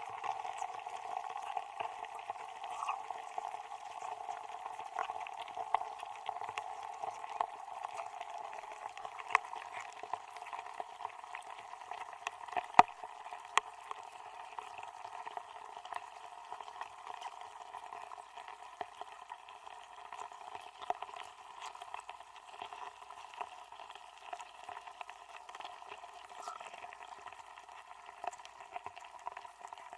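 Muffled, crackling noise full of small scattered clicks, with one sharp, louder click about thirteen seconds in, fading slightly toward the end.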